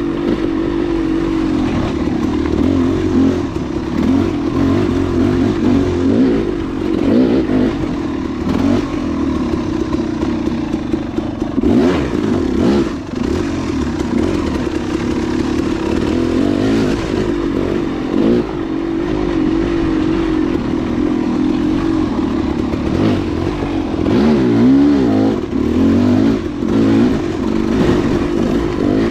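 Dual-sport motorcycle engine running on a dirt trail under constantly changing throttle, its pitch rising and falling, with occasional knocks and clatter from the bike.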